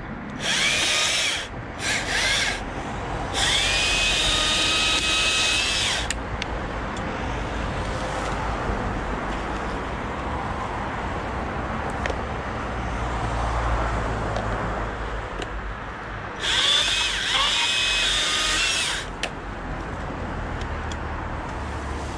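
Stihl battery top-handle chainsaw running in bursts, its electric motor whining up in pitch at each trigger pull. There are three short runs in the first six seconds and a longer one about two-thirds of the way through, with a low steady background noise between them.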